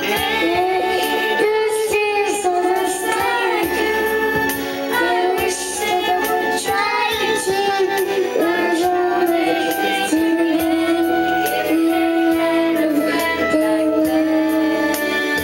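A videoke (karaoke) song plays, backing music with a high voice singing along, as a toddler sings into the karaoke microphone.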